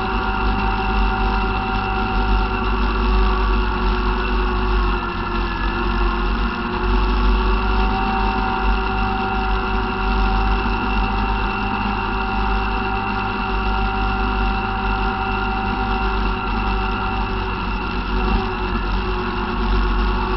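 ATV engine running at a steady speed while the quad is ridden along a gravel road, its pitch holding even throughout.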